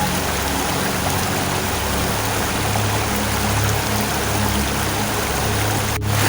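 Steady rushing water like a stream, with low sustained music notes underneath; the sound drops out abruptly for a moment near the end.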